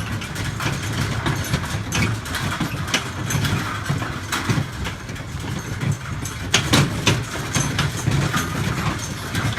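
Motor vehicle engine running steadily while towing, with scattered knocks and rattles, the loudest a little before the end.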